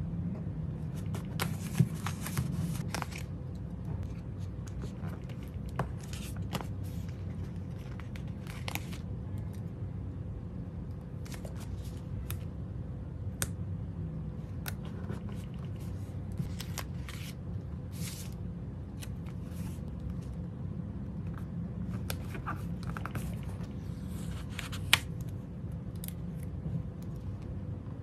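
Stickers peeled off their backing sheets with metal tweezers and pressed onto paper planner pages: short scratchy peels and paper rustles, with sharp tweezer clicks about two seconds in and near the end, over a steady low hum.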